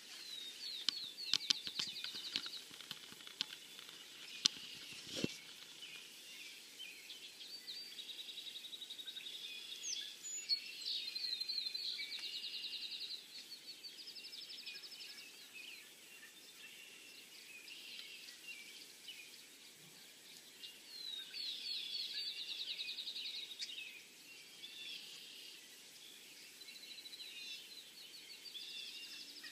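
Songbirds singing, with repeated fast trilling phrases coming and going over faint open-field ambience. A few sharp clicks sound in the first few seconds.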